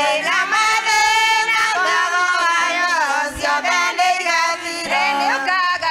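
Women's choir singing a hymn together, voices rising and falling in pitch.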